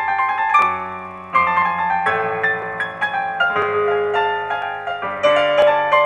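Piano music from the film's end-credits score: notes and chords struck about once a second, each ringing on over held low bass notes.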